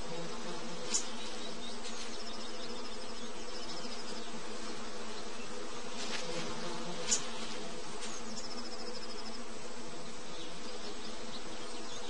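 Swarm of honeybees buzzing steadily around a nest that a honey buzzard is digging out, with a few faint high trills and a couple of light ticks.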